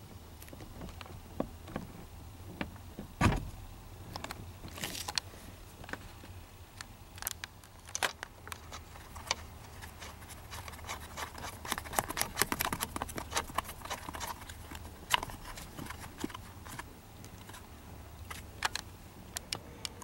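Scattered metallic clicks, rattles and knocks as the steering wheel is handled and slid back onto the steering column shaft of a 1981 Ford F-150, with one louder knock about three seconds in.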